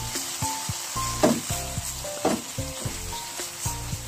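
Blended spice paste sizzling in oil in a granite-coated frying pan while a spatula stirs and scrapes it across the pan, with a scrape about every second. The paste is being sautéed until fragrant.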